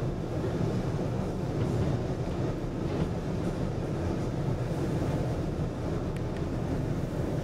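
1977 KONE inclined elevator in motion: a steady low rumble from its hoist machinery and running ropes.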